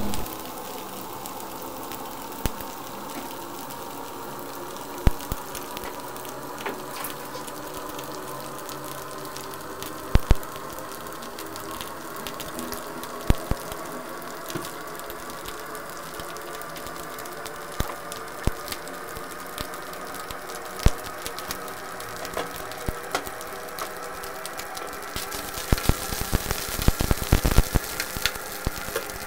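Omena (small dried sardines) frying in hot oil in a non-stick pan until crispy: a steady sizzle with scattered sharp pops. Near the end the crackling thickens as the fish are stirred and turned in the pan.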